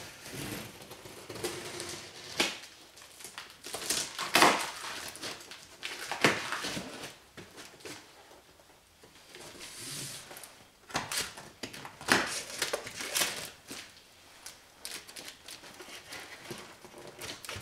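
Box cutter slicing packing tape along the seam of a large cardboard carton, in irregular scrapes and short tearing strokes with a quieter pause midway. Near the end comes rustling and scraping of cardboard as a cut flap is lifted.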